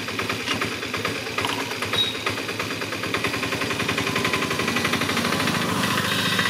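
A small engine running at idle, its rapid, even knocking beats going steadily.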